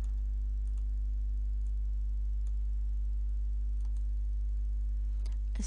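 Steady low electrical hum from the recording setup, with a few faint, sparse computer mouse clicks.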